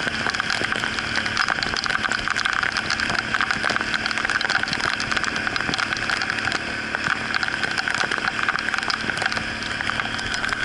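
Outboard motor of a river canoe running steadily under way, with storm rain and spray hitting the boat and the camera in many small, quick ticks.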